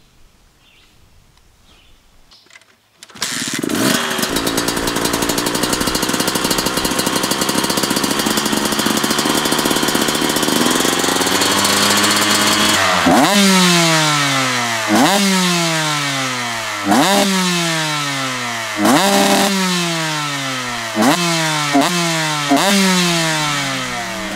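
2016 KTM 125SX single-cylinder two-stroke engine with an FMF Fatty expansion chamber and Titanium Powercore 2.1 silencer starts about three seconds in and runs at a steady idle. From about halfway it is blipped about seven times, each rev rising sharply in pitch and then falling away.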